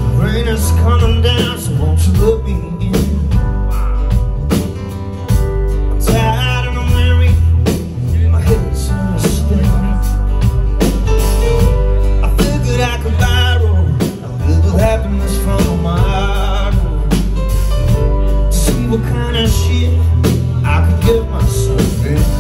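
A live band performing a soul-tinged rock song: male lead vocals over electric and acoustic guitars and bass guitar, with a steady beat.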